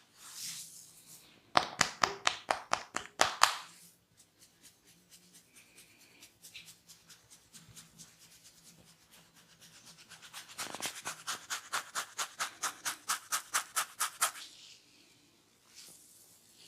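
A barber's hands cracking and snapping on a client's head during a head massage, in two quick, even runs of sharp cracks at about five or six a second. A short, loud run of about a dozen comes about a second and a half in, and a longer run of about twenty starts about ten seconds in, with faint rubbing between them.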